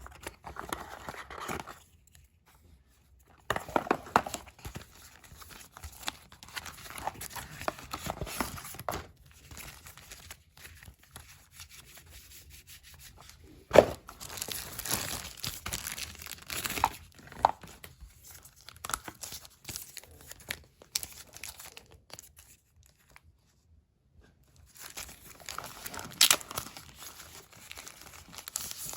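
Hands unpacking a smartphone box: irregular rustling and tearing of packaging, broken by several sharp clicks, the loudest about 14 seconds in, with short quiet pauses between bouts of handling.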